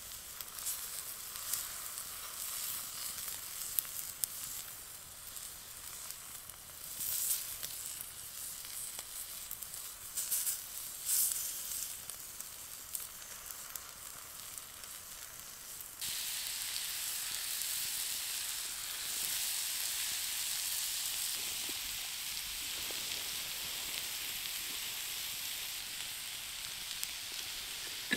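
Steak sizzling on a flat stone heated over a campfire, with a few sharp pops in the first half. Just past halfway the sizzle becomes steadier and louder.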